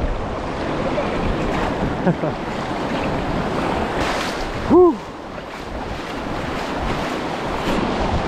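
Surf washing and splashing around a fishing kayak's hull in shallow water, with wind on the microphone. About halfway through a person gives one short shout, the loudest sound.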